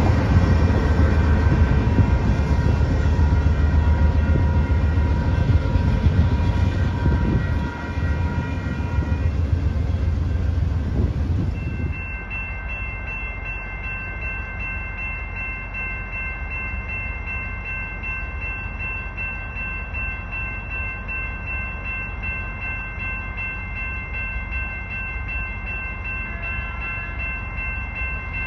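Diesel freight locomotive passing close by with a heavy low rumble while its horn sounds a steady chord. The horn stops about nine seconds in and the rumble cuts off near twelve seconds. A quieter train horn chord then holds steady for the rest of the time.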